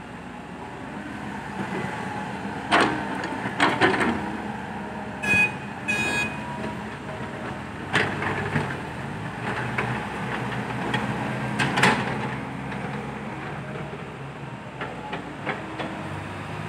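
Diesel dump truck engines running, with several loud clanks and bangs and two short high beeps about five seconds in.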